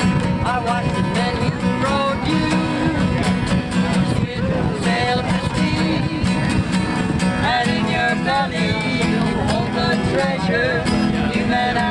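Acoustic guitar strummed steadily while a man and a woman sing together.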